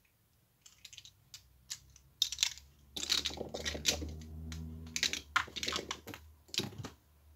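Loose plastic Rubik's cube pieces clicking and clattering against each other and the mat as they are quickly picked up and fitted together, in rapid, irregular taps. A low steady hum lies underneath for a couple of seconds in the middle.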